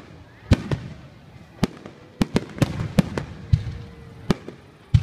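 Japanese star mine fireworks barrage: aerial shells bursting in quick, irregular succession, about a dozen sharp bangs in five seconds, crowding together in the middle, each followed by a brief echoing rumble.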